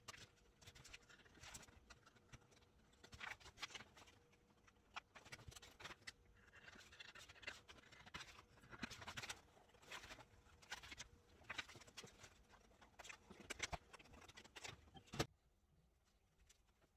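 Scissors snipping through a large sheet of printed paper sewing pattern, the paper rustling as it is turned and fed through; faint, irregular runs of snips and crinkles that stop abruptly near the end.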